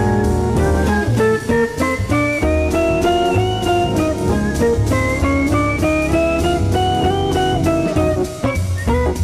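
Instrumental background music: a guitar melody of held notes stepping up and down over bass and drum kit, in a bluesy style.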